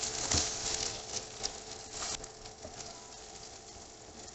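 Chicken and potato cutlets shallow-frying in mustard oil in a non-stick pan: a soft sizzle with scattered crackles and pops, slowly dying down.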